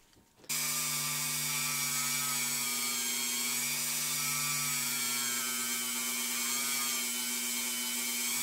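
Small handheld rotary tool switched on about half a second in and running at a steady high speed with a constant whine, its bit working a small clear plastic part.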